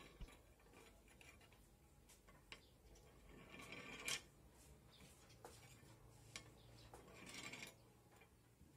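Faint rolling of a pen across the weighing pan of an electronic analytical balance, twice, the first roll ending in a light knock about four seconds in. The pen rolls because the balance stands tilted, not level.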